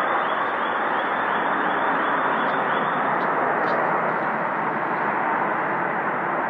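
A very loud, unbroken noise from the night sky, like a jet aircraft but continuous, holding steady without rising or falling; its source is unexplained.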